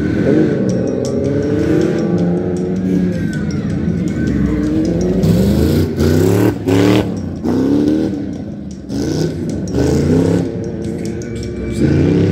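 Tuff truck pickup engine revving hard in repeated surges, its pitch climbing and dropping several times as the driver works the throttle.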